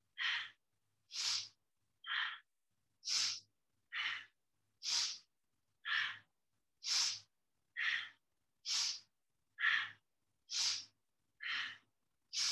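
A woman breathing hard and audibly, inhales and exhales alternating in a steady rhythm of about one breath a second, each a short hissy rush of air, paced to a quick arm-swinging exercise.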